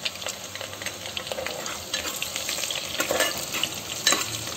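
Sliced onions and green chillies sizzling and crackling in hot mustard oil in a pressure cooker, being fried toward light golden. A steel ladle stirs them and scrapes the pan a few times in the second half.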